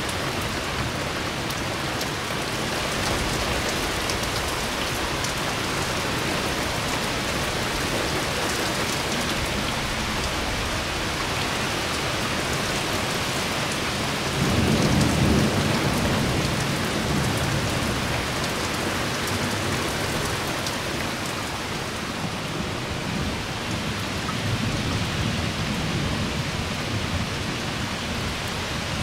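Heavy rain from a severe thunderstorm falling steadily, with a rumble of thunder about halfway through and a fainter rumble near the end.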